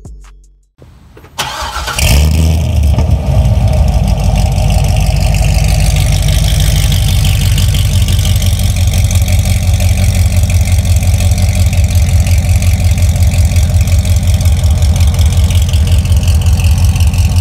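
2008 Chevrolet Corvette C6's 6.2-litre LS3 V8 started from cold: a brief crank about a second in, a loud flare as it catches, then a steady idle with an even pulse from the quad exhaust.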